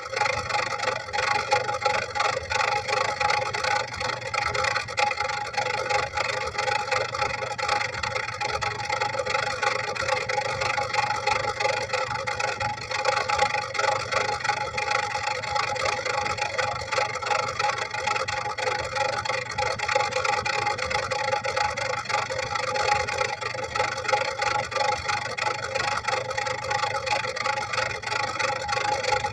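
Toyota Kijang Kapsul engine and exhaust running steadily, with no revving.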